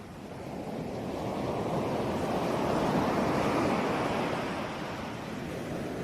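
Ocean waves rolling onto a shore: a steady wash of surf that swells as a wave builds and breaks, peaking a few seconds in, then eases back.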